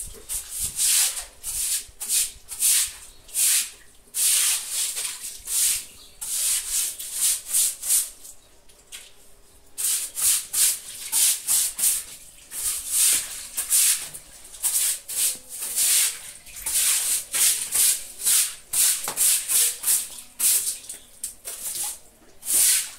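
Stiff bristles scrubbing wet concrete stairs in repeated back-and-forth strokes, about one to two a second, with a short pause about seven seconds in: scouring off caked grime.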